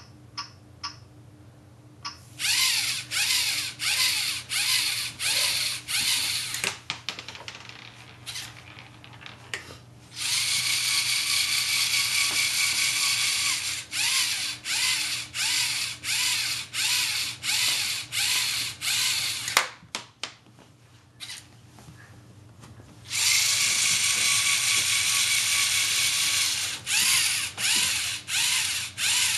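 LEGO Mindstorms NXT robot's servo motors whirring with gear noise as it drives, sometimes in pulses about twice a second and sometimes running steadily for several seconds, with quieter gaps between. A few short clicks at the start and one sharp knock about two-thirds of the way through.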